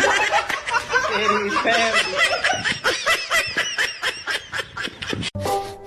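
Someone laughing hard in a rapid run of short, high-pitched bursts, about five a second; the laughter cuts off near the end and music begins.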